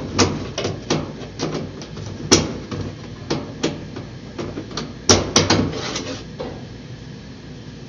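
Irregular knocks and clicks, two or three a second, with louder hits about two and five seconds in, stopping about six seconds in; a steady low hum runs underneath.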